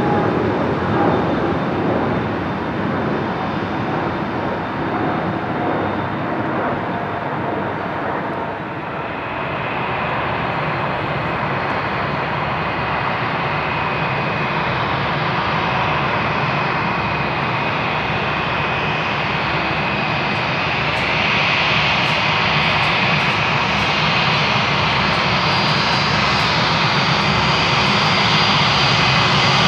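Airbus A321-200 jet engines running: a steady jet roar with a high whine that comes in about nine seconds in, getting louder toward the end.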